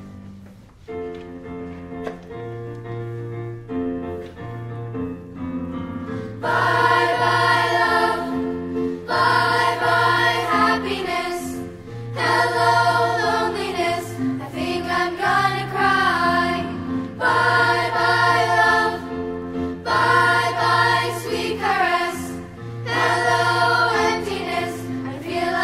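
Children's choir singing a 1950s pop song with an instrumental accompaniment. For roughly the first six seconds only the accompaniment plays, then the voices come in loudly and carry on to the end.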